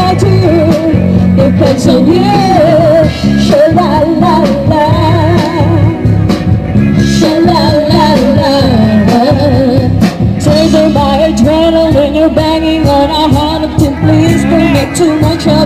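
A band playing a pop-rock song: a wavering, bending melody line over steady drums and bass.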